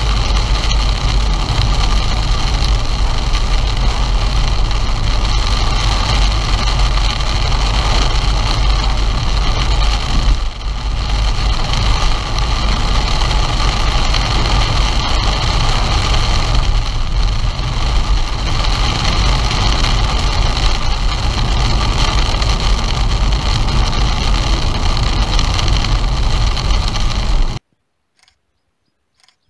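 Steady, loud road and engine noise from inside a car driving on a wet road, with a heavy low rumble. It cuts off suddenly near the end.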